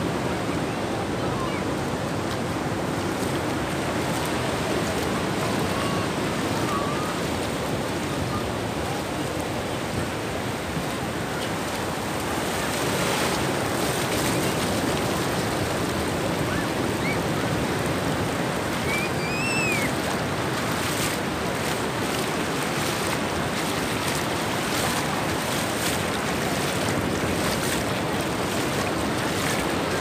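Sea surf washing up the beach: a steady rush of shallow, foamy water running in and out over wet sand. A few faint high chirps come through about two-thirds of the way in.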